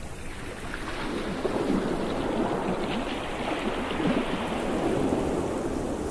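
Ocean waves breaking: surf that swells about a second in, washes on strongly, and eases near the end.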